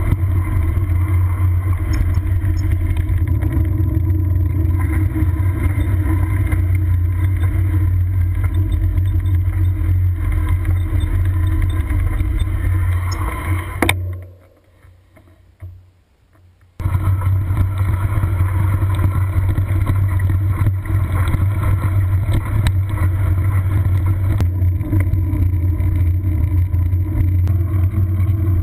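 Steady wind rumble and road noise on a bicycle-mounted camera while riding. It drops to a much quieter stretch for about three seconds midway, then comes back at full level.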